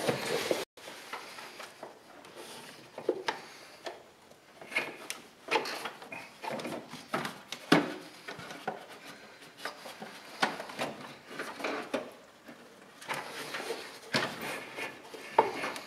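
A rubber serpentine belt being worked by hand around an engine's pulleys: irregular rubbing and scraping with light knocks and clicks.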